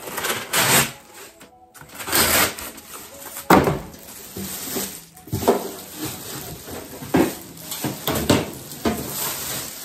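Metal toaster-oven trays and racks clanking and rattling as they are handled and unpacked, a string of separate knocks and scrapes.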